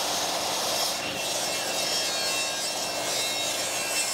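Table saw ripping a southern yellow pine board to width, a steady cutting noise over the motor's hum.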